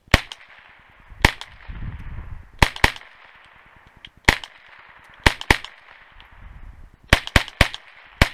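AR-style .22 rifle fitted with a titanium muzzle brake firing about eleven sharp shots, some single and some in quick pairs, with a fast string of three near the end. Each shot is followed by a short echo.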